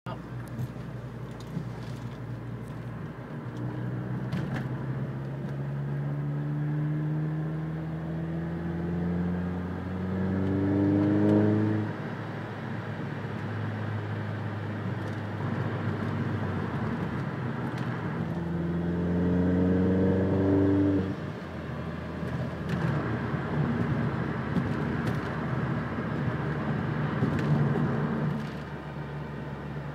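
Vauxhall Corsa VXR's 1.6 turbo four-cylinder engine with a whining noise that the owner finds annoying. Twice the pitch climbs steadily for several seconds as the revs rise and then drops suddenly, about 12 seconds in and again about 21 seconds in. Between and after the climbs it runs at steadier revs.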